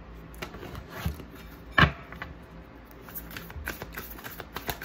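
Oracle cards being handled, drawn from the deck and laid on a desk: a scatter of short clicks and taps, the sharpest about two seconds in.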